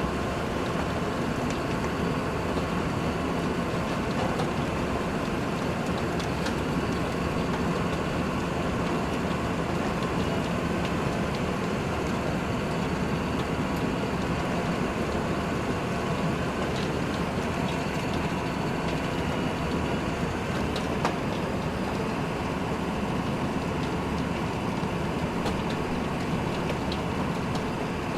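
A heavy construction vehicle's engine running steadily, with scattered small ticks over the even rumble.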